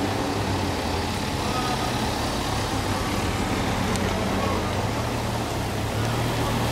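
Engine noise from a motor scooter and a car rolling slowly past at walking pace, over a steady low engine hum and street traffic noise.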